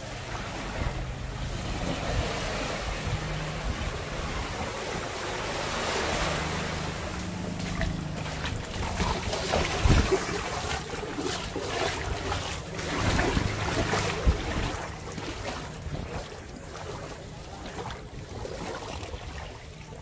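Small waves washing onto a sandy beach, swelling and easing, with wind gusting on the microphone.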